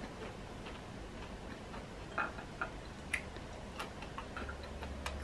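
Faint, irregular light clicks and taps, about one every half second to second: cutlery and plates handled while eating.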